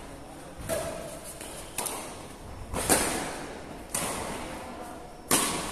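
Badminton rally: racket strikes on the shuttlecock about once a second, five in all, each ringing on in the echo of a large hall.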